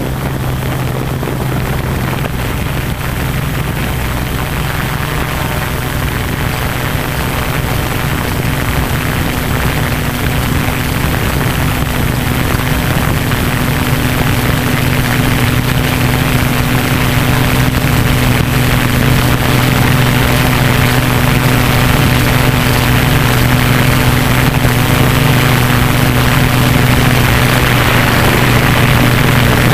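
Tarot 680 Pro hexacopter's six brushless motors and propellers running in flight: a steady hum with a hiss that grows slowly louder.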